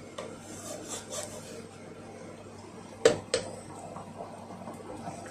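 Wooden spatula stirring a pot of simmering chickpea curry, scraping against the pot, with two sharp knocks a moment apart about three seconds in, the spatula striking the pot. A steady low hum runs underneath.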